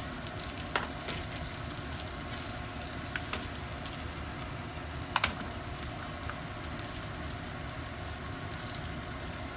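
Sliced garlic and boiled spinach sizzling gently in oil in a frying pan over low heat, with a few light clicks and knocks, the sharpest about five seconds in.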